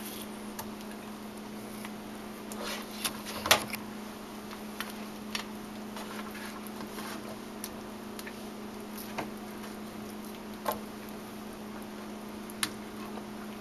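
Scattered light clicks and taps as sauce-coated chicken pieces are moved from a wok onto a plate, the loudest about three and a half seconds in, over a steady low hum.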